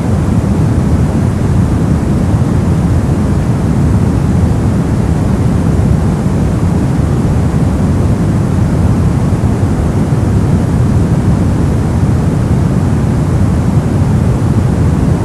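Brown noise: a steady, unchanging deep rushing hiss, strongest in the low end and fading toward the highs.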